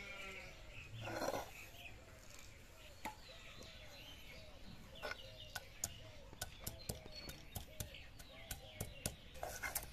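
Stone grinder (nora) knocking and crushing ginger and green chilli on a flat stone grinding slab (shil): a run of sharp, irregular clicks that gets busier in the second half. Faint chirping calls sound behind it.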